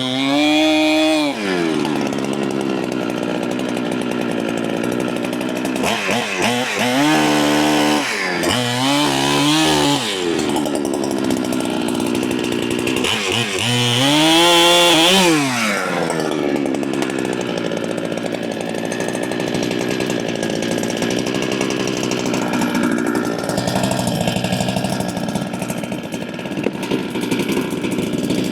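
Holzfforma clone big-bore chainsaw running and cutting: the engine revs up and falls back several times, then runs steadily under load in the cut.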